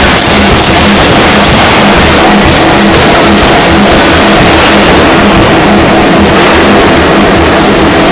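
C41 pneumatic power hammer running loudly and forging a red-hot steel bar end, a dense mechanical racket with a steady hum of the hammer's machinery under it.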